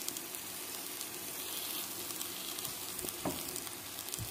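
Birria tacos frying in oil in a pan, sizzling steadily with faint crackles, and a soft knock a little after three seconds in.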